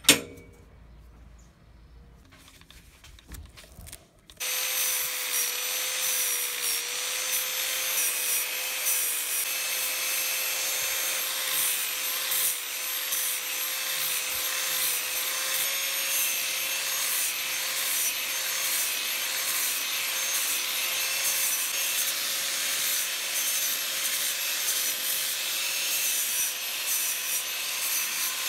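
A sharp knock at the start. About four seconds in, a Black & Decker angle grinder starts up and runs steadily with a constant whine, its sanding disc grinding and shaping a laminated wooden handle.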